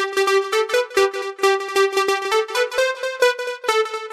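GForce OB-EZ software synthesizer, an emulation of the Oberheim 8-Voice, playing a keys preset: a quick, bright phrase of short struck notes at about four a second, moving between a few pitches and stepping higher in the second half.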